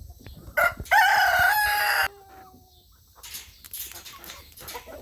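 A rooster crows once, starting about a second in: a short note, then a loud drawn-out call of about a second, trailing off at the end. Quieter scattered noises follow.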